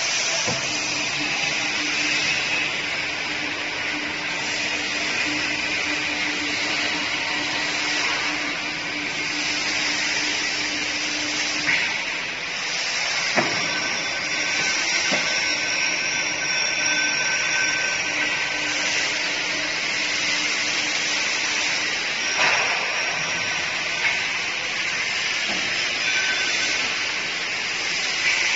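Stainless steel automatic deep fryer machine running: a steady hiss with a low motor hum, and a few sharp clicks as control-panel buttons are pressed.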